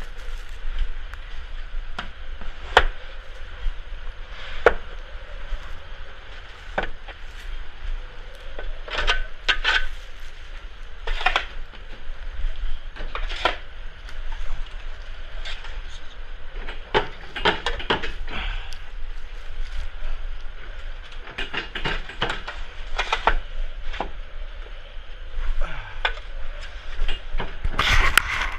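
A snow shovel digging into and scraping out packed, drifted snow, in uneven strokes one to three seconds apart, over a steady rushing background.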